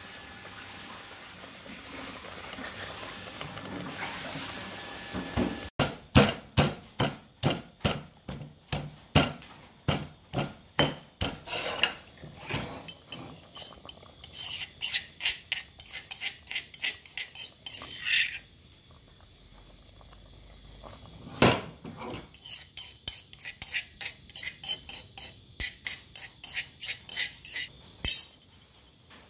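A metal utensil knocking and scraping against a metal cooking pot, about two strokes a second, as soup is stirred. A steady hiss comes first, before the strokes begin. The strokes pause for a few seconds, then one loud knock is followed by more clinking.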